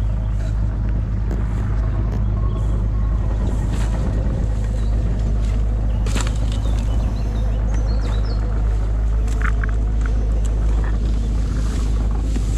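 A steady low rumble, with rustling steps and handling noise as someone walks through long grass with a fork, and a few faint bird chirps about six to seven seconds in.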